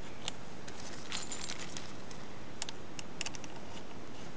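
Light clicks and rattles of hard plastic parts of a ground-penetrating radar being handled and fitted together during assembly: scattered sharp ticks, bunched just after a second in and again around three seconds in.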